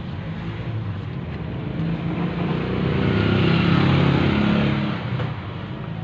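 A motor vehicle's engine hum swelling to its loudest about four seconds in and then fading, like a vehicle passing by.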